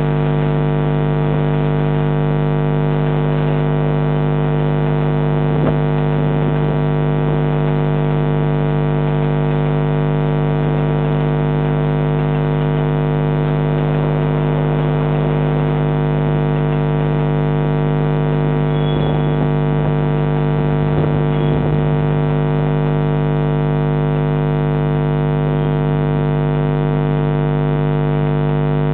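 Loud, steady electrical hum: a constant buzzing drone with many overtones that does not change, with faint scattered rattles underneath now and then.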